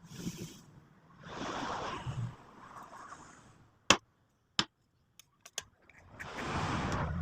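Several bursts of rushing, hissing air, with two sharp clicks in a quiet gap in the middle and the rushing swelling up again near the end.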